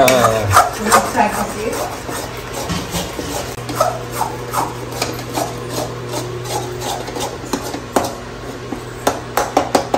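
A steel spatula scraping and stirring scrambled egg in a metal kadai, with repeated scrapes and knocks against the pan's side. A low steady hum runs underneath, and the strokes quicken into a run of taps near the end.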